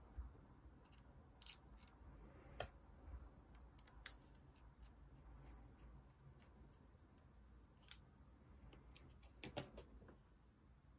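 Faint, scattered small clicks and taps of the parts of an AAP-01 airsoft pistol's power brake being handled and fitted by hand and with a small screwdriver. The sharpest click comes about four seconds in, and there is a short cluster of clicks near the end.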